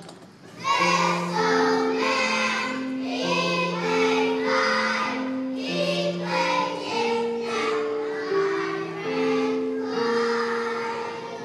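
A group of children singing a song together with musical accompaniment, taking up a new phrase just under a second in after a brief pause.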